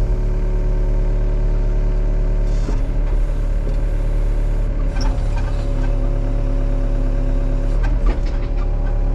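Excavator's diesel engine running with a steady whine over a low rumble as the machine backs up, with a couple of brief knocks about five and eight seconds in.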